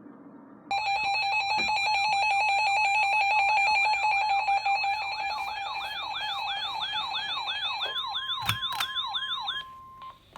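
Loud electronic alert tones: a siren-like warble of rapidly repeating rising sweeps over steady high tones. About eight seconds in it gives way to a single steady tone, the weather radio alert tone that comes before a new severe thunderstorm warning.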